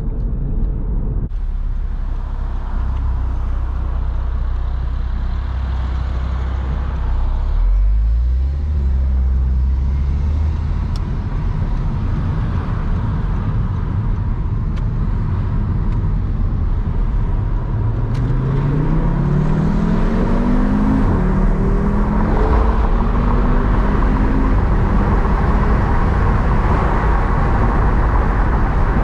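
Audi RS3 8P's turbocharged five-cylinder engine running as the car is driven, with a steady low rumble. The engine note rises as it accelerates about eight seconds in, and again from about eighteen seconds, dropping at a gear change a few seconds later and climbing again.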